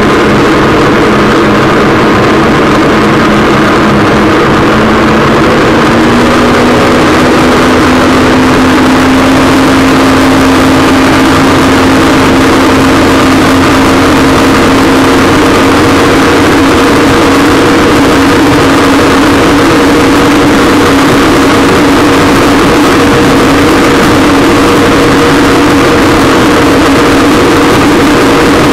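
Waverunner (personal watercraft) engine running under way, its pitch climbing slightly about six seconds in and then holding steady, over a loud steady rushing noise.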